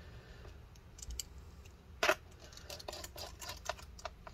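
Small precision screwdriver driving screws into a laptop's aluminium bottom case: faint scattered clicks and ticks of the bit and screws on the metal, with one sharper click about two seconds in and a quick run of ticks after it.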